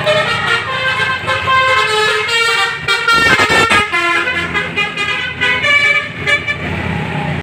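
A bus's telolet basuri musical horn playing a tune: a quick run of held notes stepping up and down in pitch, with several notes sounding together.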